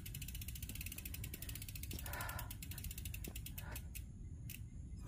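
Bicycle freewheel hub ticking rapidly and evenly as the bike coasts without pedalling, stopping about four seconds in, over a low rumble.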